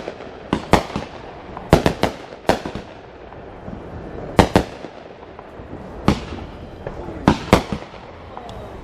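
Fireworks going off: about a dozen sharp booms and cracks at irregular intervals, several in quick pairs, with a faint rising whistle near the end.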